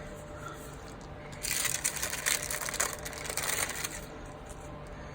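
Paper stickers and their backing sheet being handled: a crackly paper rustle that starts about a second and a half in and lasts about two and a half seconds.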